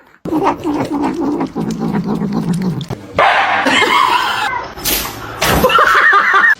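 A pet animal vocalising: low-pitched sounds with many short pulses at first, then a noisy stretch and higher-pitched cries in the second half.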